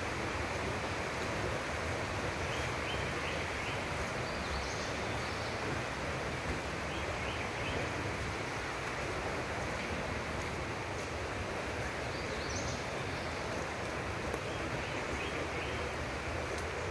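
Steady rushing of water falling from the waterfalls, with a few faint high chirps over it.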